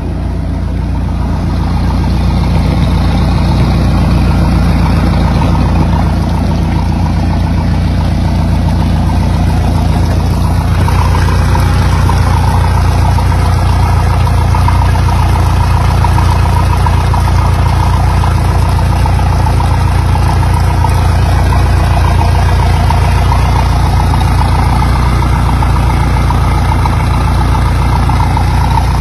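Boat's inboard engine running steadily out of the water, its exhaust open to the air. It grows a little louder over the first two seconds and changes in tone about eleven seconds in.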